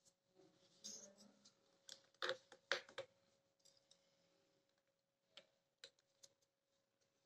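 Quiet small clicks and taps of pomegranate seeds and chopped green chilli being picked by hand from a tray and sprinkled onto a plate of papdi chaat, densest about two to three seconds in, with a few more near the end. A faint steady hum runs underneath.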